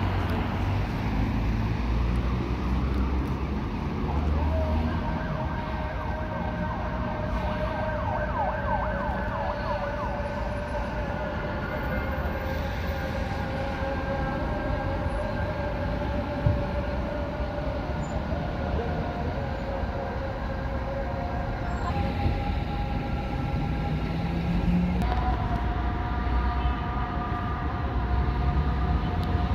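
Street traffic and vehicle rumble, with a steady whining tone that holds for long stretches and changes pitch twice in the last third.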